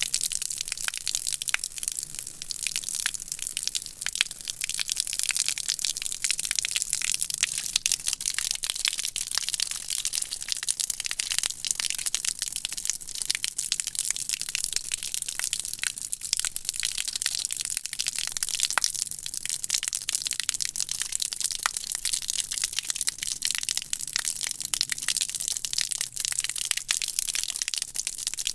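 Water from a garden hose spraying onto concrete: a steady, dense spattering hiss with fine crackle, mostly high in pitch.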